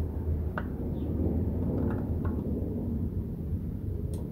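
Steady low rumble with a few faint light taps and clicks as a spin-on oil filter is handled and lined up against its threaded housing.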